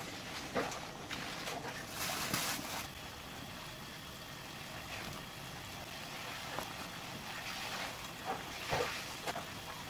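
Red chicken sauce (dakgalbi) bubbling and sizzling steadily in a frying pan, with small pops throughout and a brief rush of hiss about two seconds in. Near the end come a few soft plops as pieces of rice cake are dropped into the sauce.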